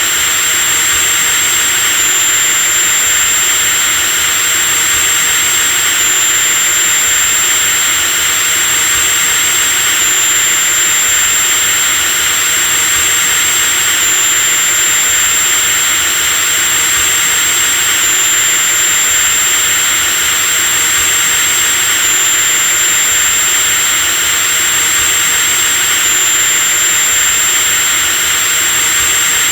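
Electric drill running steadily with a constant high-pitched whine over a hiss. A slight hitch recurs about every four seconds.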